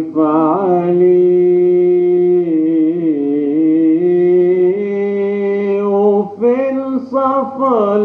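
A man singing an Arabic song, drawing out long held vowels with wavering melodic ornaments between them. The voice breaks off briefly about six seconds in, then carries on.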